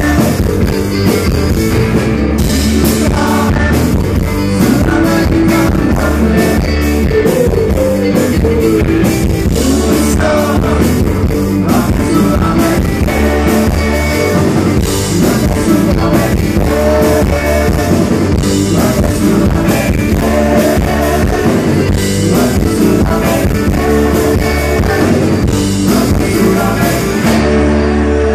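Live rock band playing loud: electric guitars, bass and drum kit with a singer. About a second before the end the drums stop and the guitars and bass ring on.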